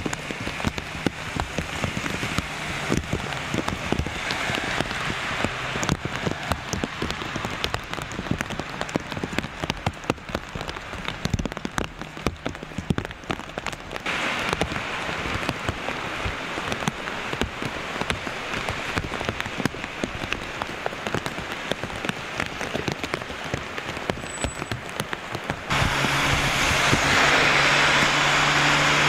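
Steady rain, with many separate drops striking close by as sharp ticks over a constant hiss. About 26 s in, the sound becomes the louder, smoother hiss of car tyres on a wet road.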